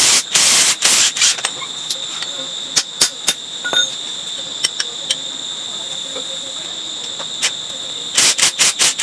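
A handheld power tool pressed against a metal part in a few short, loud, hissing bursts near the start and again in a quick series near the end, with a few sharp clicks in between. Crickets trill steadily in the background at a high pitch.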